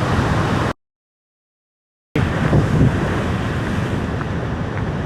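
Heavy ocean swell surging against a rock ledge, with wind buffeting the microphone. The sound cuts out completely for about a second and a half shortly after the start, then the surf and wind come back.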